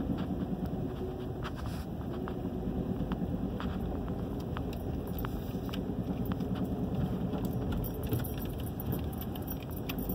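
Footsteps on wet, slushy pavement with light clicks and jingling, over a steady low rumble.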